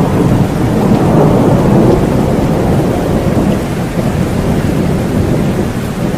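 Steady rain with a deep, low rumble of thunder under it.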